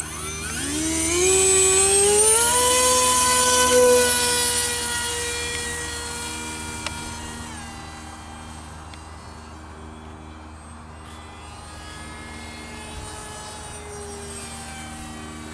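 Electric motor and propeller of an RC parkjet model of the Boeing ALCM cruise missile whining up to full throttle at hand launch: the pitch rises over about two seconds, then holds steady and fades as the model flies away, swelling slightly again near the end as it passes back.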